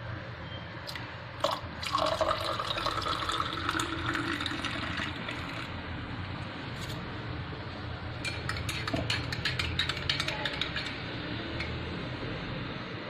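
Liquid being poured into a container for a few seconds, followed by a run of light clinks and taps of kitchenware.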